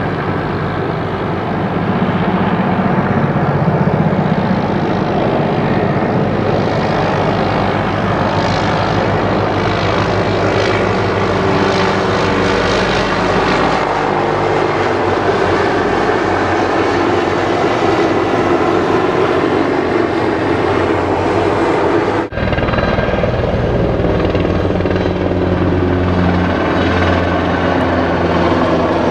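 Low-flying military helicopters overhead: loud, continuous rotor chop and engine noise, with a rapid pulsing beat. There is a brief break about three-quarters of the way through.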